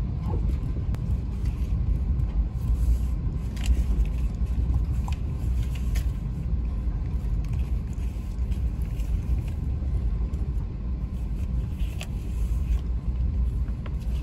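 Amtrak Acela train running, heard from inside the passenger car: a steady low rumble of wheels on rail, with a few brief clicks.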